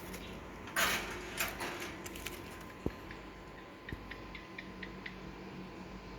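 Two short rustling bursts, then two sharp clicks about a second apart and a scatter of faint light ticks, over a steady electrical hum.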